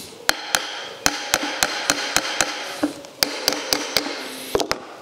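A hammer striking the nose housing of an old starter motor to knock the housing off the motor body. There are about fifteen sharp blows with a brief metallic ring, in quick runs of about four a second. The housing seems to want to go, but something is holding it.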